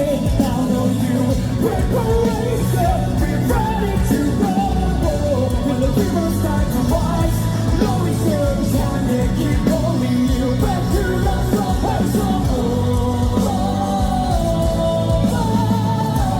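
Live rock band playing loud with singing over drums, bass and guitars.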